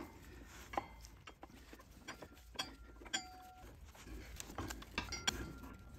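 Quiet scattered clicks and light metallic clinks as the rear axle and brake caliper bracket of a Harley-Davidson touring motorcycle are worked loose by hand, with a short ringing metal clink about three seconds in.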